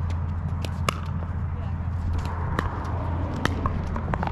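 Pickleball paddles striking the hollow plastic ball during a rally: a series of sharp pops at irregular intervals, the loudest about a second in and again about three and a half seconds in, over a steady low rumble.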